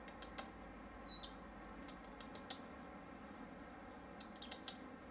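Small birds chirping: scattered short, high chips with two quick twittering calls that sweep up and down in pitch, one about a second in and one near the end.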